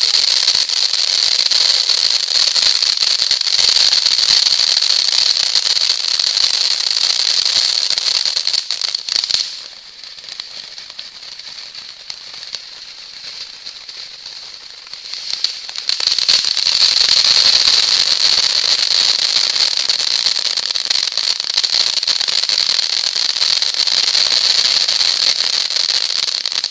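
Ground firework fountains spraying sparks with a dense crackling hiss. It quietens about nine seconds in and rises again loudly around sixteen seconds.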